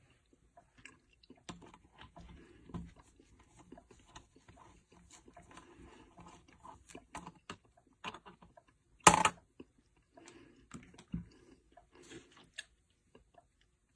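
Small clicks, taps and scrapes of hands and a tool working on a motherboard while removing the metal heatsink from its M.2 slot, with one loud sharp clack about nine seconds in.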